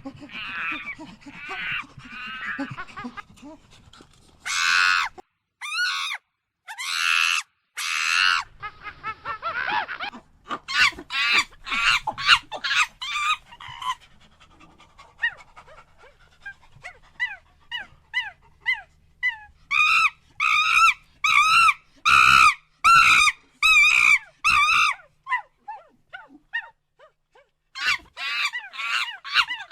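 Monkey calls: repeated high-pitched cries with a wavering pitch, coming in bursts. A quieter run of short calls in the middle gives way to a fast series of loud calls, then a pause of about two seconds before more calls near the end.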